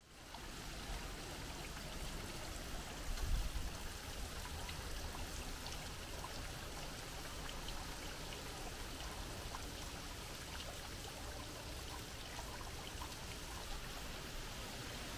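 A small waterfall splashing steadily from a stone grotto into a garden pond. A brief low rumble comes about three seconds in.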